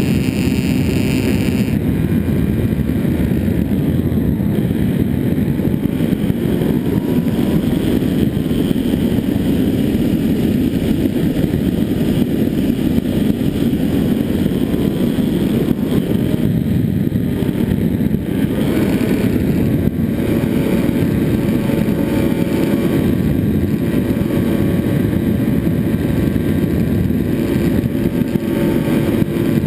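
Finwing Penguin RC plane's electric motor and pusher propeller running in flight, heard from the camera mounted on the airframe, mixed with heavy wind rush over the microphone. A faint motor whine shifts in pitch now and then as the throttle changes.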